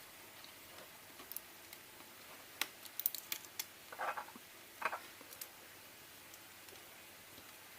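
Small clicks and scrapes of a plastic opening tool working the glued battery loose inside a first-generation iPod Nano. A few sharp ticks come around three seconds in, then two short scraping bursts about four and five seconds in.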